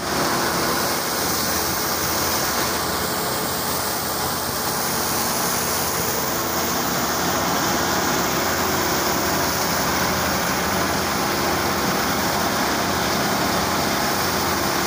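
Tractor-PTO-driven thresher running steadily as dry mustard stalks are fed into its drum, over the tractor engine's low hum.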